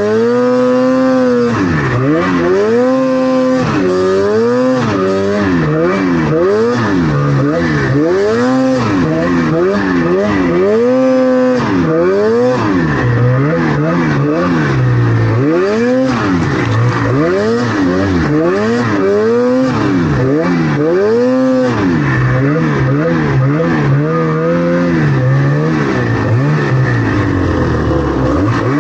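Snowmobile engine revving up and down over and over as the sled is ridden, its pitch rising and falling about once a second.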